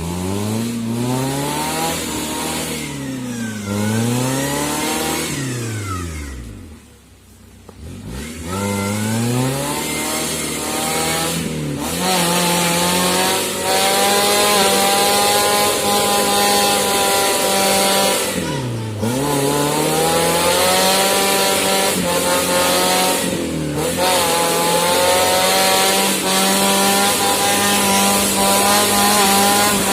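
An engine revving up and down several times, dropping off for a moment, then held at high revs with a few brief dips.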